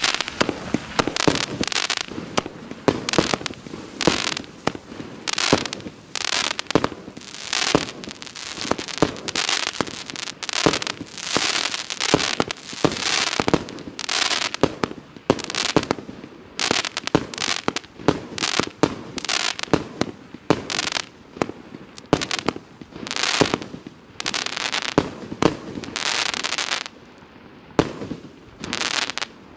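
Klasek Signature range 25-shot firework cake firing, its shots going off in a steady run of sharp bangs about one a second. The barrage ends about two seconds before the end.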